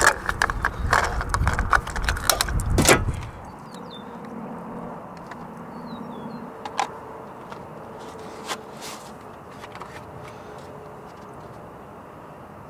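A car's plastic fuel filler cap being screwed onto the filler neck, its ratchet clicking rapidly for about three seconds and ending in a louder knock. After that there is only a quiet outdoor background with a couple of faint clicks.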